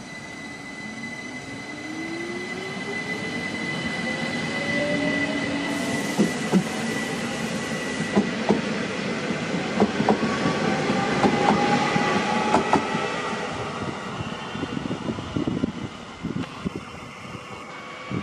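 Train pulling away, its whine rising steadily in pitch over the first eight seconds. Wheels knock over rail joints in the middle, and it grows louder, then fades near the end.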